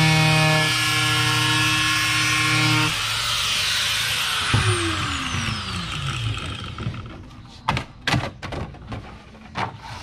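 Handheld angle grinder running steadily against a laminate sheet, then switched off about three seconds in and winding down with a falling whine. A few sharp knocks follow near the end as the laminate sheet is handled.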